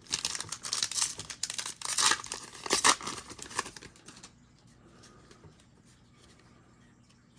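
A plastic trading-card pack wrapper being torn open and crinkled, a crackly tearing that lasts about four seconds and is loudest near the end, then only faint rustling.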